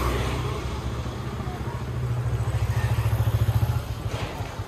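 Motor vehicle engine running close by with a rapid low throb, easing off a little near the end.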